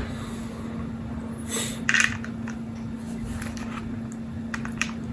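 Small metal tool handling: a brief rustle, then a short clatter about two seconds in and a few light clicks, as a 10 mm tool is picked up and put to a battery terminal nut to tighten it. A steady low hum runs underneath.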